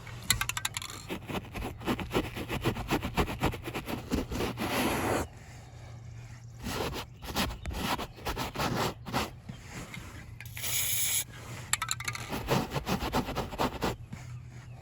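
Nylon brush scrubbing spray-on carpet dye into truck carpet in quick scraping strokes, with a brief hiss of aerosol spray about ten and a half seconds in.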